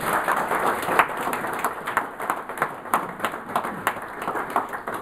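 Audience applauding, with many separate hand claps in an irregular patter.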